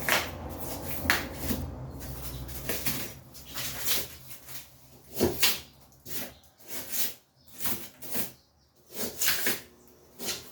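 Irregular knocks, scrapes and rustles of hands working on the opened-up back of a refrigerator while tracing the capillary tube.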